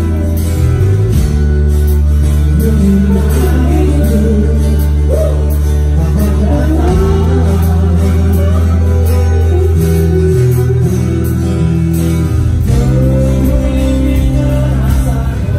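A rock band playing loud live music: electric guitars, electric bass and drums, with singing over a heavy bass line.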